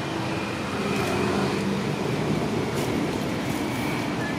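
Steady low rumble of motor-vehicle engine and traffic noise.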